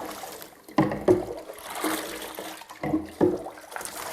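Water running and splashing irregularly as soapy water is rinsed out of a wet hen's feathers.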